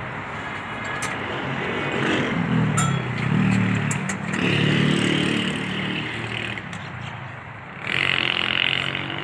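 Motor vehicle engine running nearby, with a steady noisy background that swells louder twice in the middle and again near the end.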